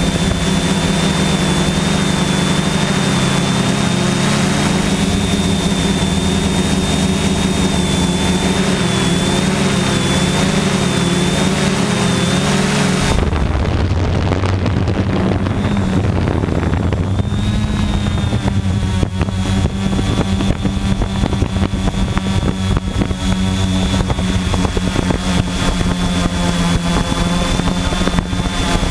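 Quadcopter's electric motors and propellers running in flight, heard from the drone itself: a steady buzzing hum whose pitch wavers slightly as the autopilot adjusts the motors, with a thin high whine above it. About 13 seconds in the sound changes abruptly, lower and duller with the whine gone for a few seconds, before the whine returns.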